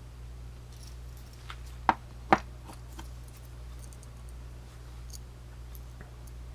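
Swiss Army knives being handled: two sharp clicks about half a second apart, with lighter ticks around them, over a steady low hum.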